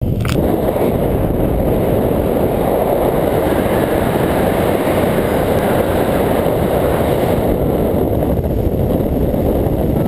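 Steady rush of wind buffeting the microphone of a camera on a hang glider in flight, a loud low roar of airflow from the glider's speed through the air.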